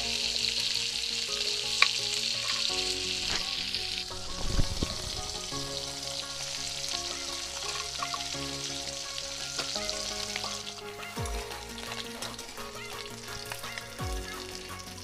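Pieces of fish frying in hot oil in a metal wok, a steady sizzle with a metal spatula knocking and scraping as the pieces are turned. The sizzle thins out near the end.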